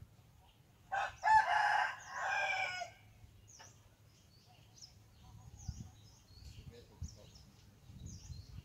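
A rooster crowing once, a drawn-out crow of about two seconds starting about a second in. Small birds chirp briefly now and then.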